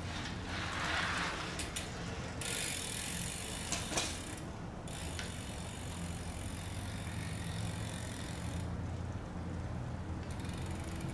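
Road bicycle rolling close past in the first couple of seconds, a short rush of tyre noise with a few sharp clicks, over a steady low background hum. A high hiss comes in about two and a half seconds in and drops away near the end.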